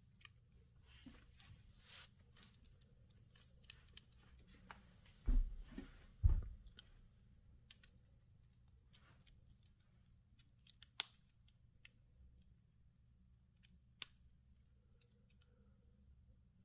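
Handling sounds from unboxing a watch: scattered small clicks and brief rustles of the watch and its packaging, with two low thumps about five and six seconds in.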